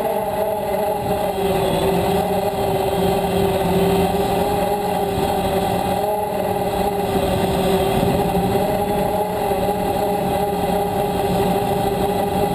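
DJI Phantom quadcopter's electric motors and propellers buzzing steadily in flight, heard close up from the camera mounted on the drone, with a small dip and waver in pitch about one to two seconds in.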